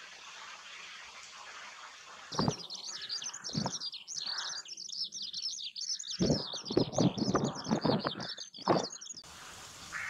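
Common reed buntings chirping in a dense, continuous high twitter that starts suddenly after about two seconds of steady hiss and stops abruptly near the end. Irregular low rustling thumps are mixed in.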